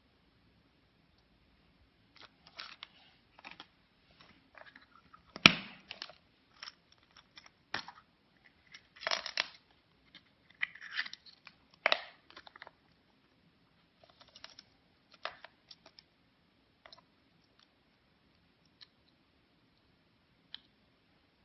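A surprise egg being handled and opened: irregular crinkling, cracking and clicking. One sharp crack about five and a half seconds in is the loudest sound. The noise thins to scattered clicks for the last few seconds.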